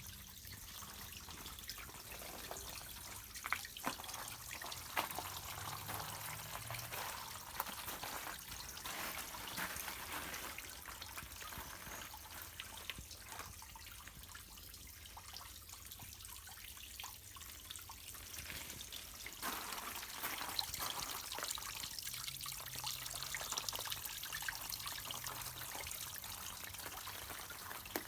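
Water trickling and splashing down a small waterfall: a steady hiss with scattered sharp drips and splashes.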